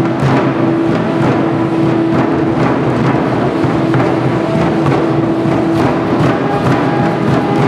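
Aztec dance music: drums beating under a long, steady held note that breaks off about six seconds in, followed by shorter higher notes.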